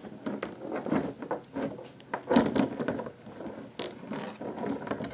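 A nylon zip tie pulled tight through its locking head, its teeth clicking past the pawl in a quick, irregular run of small ratcheting clicks.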